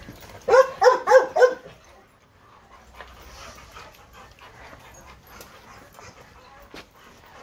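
A dog barking four times in quick succession.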